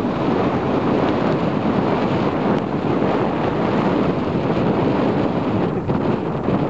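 Strong wind buffeting the microphone, a loud steady rush, mixed with small waves breaking and washing up a sandy beach.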